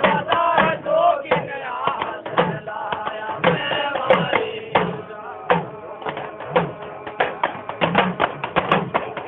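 Goga Ji devotional folk song (a jhulna): a man singing over a steady drum beat of about two strokes a second, with sharp clicking percussion on the beats.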